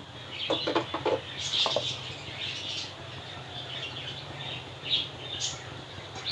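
Water and soaked dal boiling in an open aluminium pressure cooker on a gas burner: irregular bubbling and crackling over a steady low hum.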